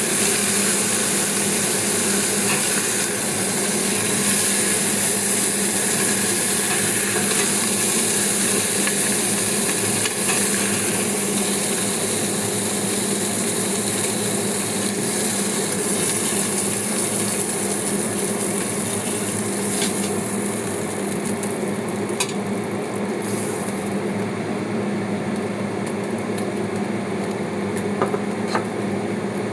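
Food sizzling in a frying pan, with a few light clinks of a utensil stirring against it; the high hiss of the sizzle thins out about two-thirds of the way through.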